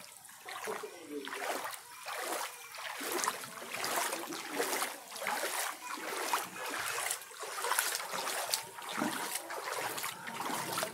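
Legs wading through floodwater that comes halfway up the legs, the water sloshing and splashing with each stride, about one surge a second.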